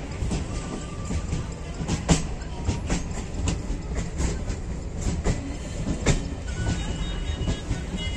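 Moving passenger train heard from an open coach doorway: a steady rumble of wheels on the rails, with irregular sharp knocks from the wheels on the track.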